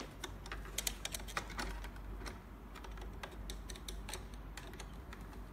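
Light, irregular clicks and ticks of a screwdriver turning screws out of the metal cuff bracket of an RBP-9000 automatic blood pressure monitor. The clicks come thickest in the first two seconds and thin out after that.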